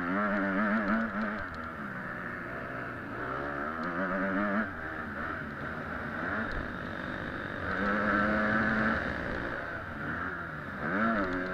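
Motocross bike engine running hard under the rider, its pitch climbing and dropping several times as the throttle is opened and closed. Heard close up from a camera mounted on the bike.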